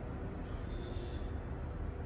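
Steady low background rumble, with a faint brief high tone about half a second in.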